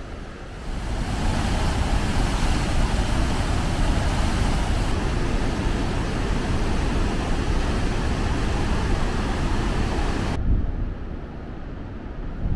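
Rapids of the muddy, swollen Urubamba River rushing over rocks: a steady, loud roar of white water that cuts off suddenly about ten seconds in, leaving a quieter low rumble.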